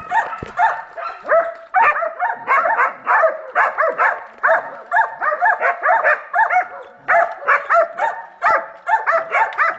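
Hunting hounds barking at wild boar, a rapid, unbroken run of barks several times a second. This is dogs baying boar, holding them at bay during training.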